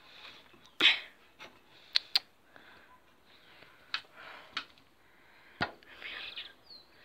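Handling noise from a phone camera being moved about: a scatter of sharp clicks and knocks, the loudest about a second in, with soft rustling between.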